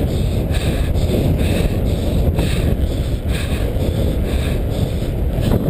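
Wind rumbling steadily on the microphone of an action camera carried along on a bicycle, a loud low noise with a fainter hiss above it that comes and goes.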